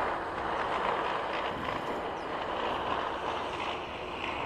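Steady outdoor street noise of passing traffic, an even hiss and rumble with no distinct events.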